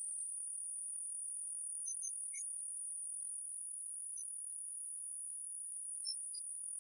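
A steady high-pitched whine with a fainter, higher tone above it, and a few faint short chirps about two, four and six seconds in.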